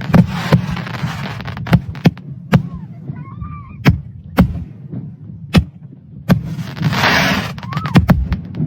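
Aerial firework shells bursting: about a dozen sharp bangs at irregular intervals, with crackling hiss between them and a longer, louder crackle about seven seconds in.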